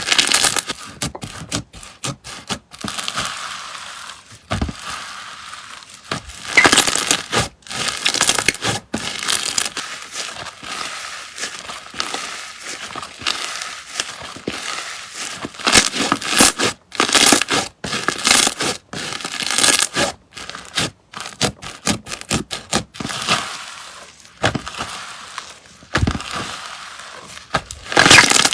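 Slime being squeezed, pressed and stretched by hand, giving a dense, irregular run of crisp crackles and pops.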